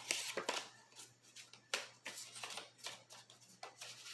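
A deck of cards being handled and shuffled: a run of irregular, papery rustles and snaps.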